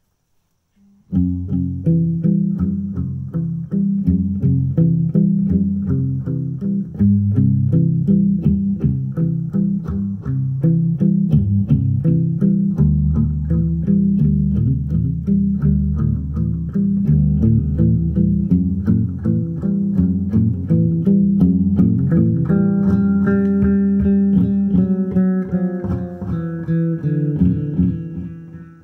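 Electric guitar played solo as a steady run of quickly picked notes, mostly low-pitched, starting about a second in. Higher, ringing notes join over the last few seconds.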